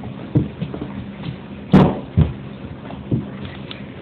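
A few short knocks and bumps, with one loud, sharp thump a little under two seconds in.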